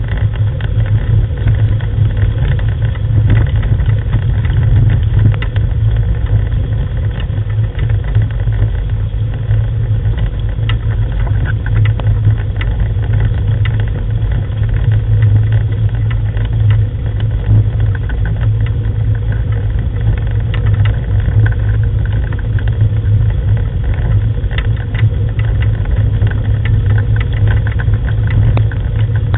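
Wheeled rig pulled by a sled-dog team, rolling over a gravel track: a steady low rumble with many small rattles and clicks.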